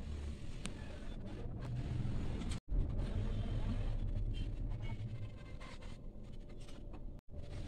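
Low rumbling background noise with faint scrapes and clicks from a handheld phone and cardboard soap boxes being handled. The sound cuts out briefly twice.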